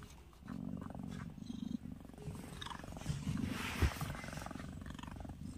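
Mother cat purring in a steady low rumble while she tends her newborn kitten. A brief rustling and a soft thump come about four seconds in.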